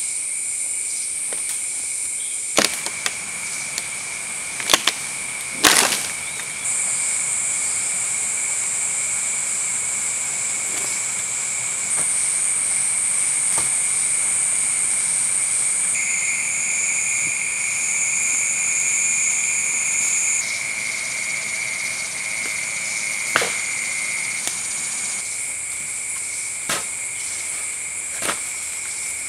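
Steady shrill insect chorus in forest, changing pitch a few times. Over it come several sharp wooden knocks and cracks, the loudest about six seconds in, as a pole levers and shifts a heavy burnt log.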